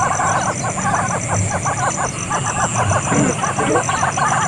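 A dense chorus of short, rapid animal chirps and calls, many overlapping, with a lower falling call about three seconds in.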